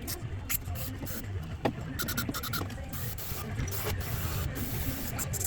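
Hand tools working on metal: irregular sharp clicks and scraping, over a low steady hum.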